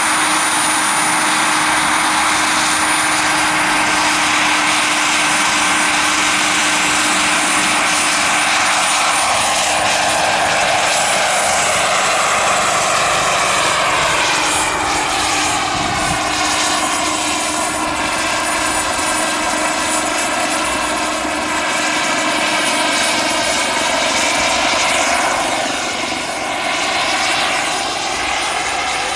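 Turbine engine of a large RC Bell 206 JetRanger scale model helicopter running at power, a steady high whine over rushing turbine noise and rotor sound. The helicopter lifts off and flies with a load hanging on a line, the pitch of its sound sliding down around the middle and again near the end as it moves past.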